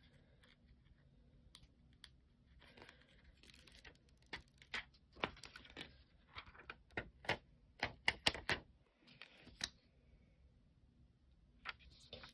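Faint, irregular clicks and taps, clustered in the middle stretch, with a few soft rustles in between.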